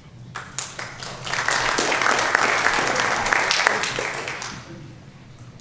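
Congregation applauding: a few scattered claps grow into full applause about a second in, then die away near the end.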